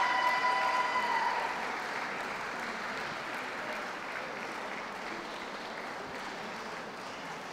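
Audience applauding, loudest at the start and slowly easing off. A brief held tone rings over it in the first second or so.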